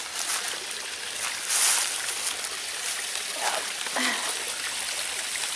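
Shallow creek water trickling over a rocky bed and small cascades, with a louder splash about a second and a half in as the dog steps through the water.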